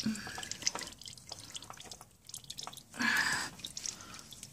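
Used engine oil dripping and trickling into a drain pan as the engine and old oil filter finish draining: a run of small irregular drips, with one brief louder rush about three seconds in.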